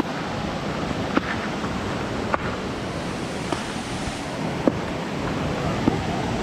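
Steady rush of river water over small cascades and falls, mixed with wind on the microphone. Short, light ticks come about once every second and a bit.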